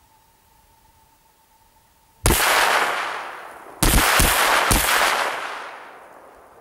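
Explosive charges set off by safety fuse detonating on ice to break it up: one sharp blast about two seconds in, then two more in quick succession about a second and a half later, each dying away over a second or two.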